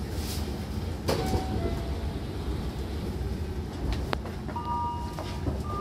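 Train's sliding doors opening at a station stop: a brief hiss, then a sharp clunk about a second in as the doors open, over the low hum of the stopped train. From about four and a half seconds, two steady electronic tones sound on and off.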